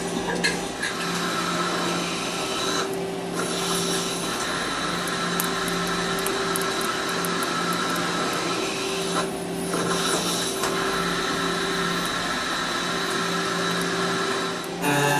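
CNC machine running, a steady whine of several held tones under a hiss; the high hiss thins briefly twice.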